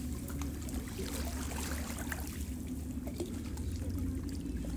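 Small sea waves lapping and trickling against shoreline rocks, a run of light splashes and drips, over a low steady rumble.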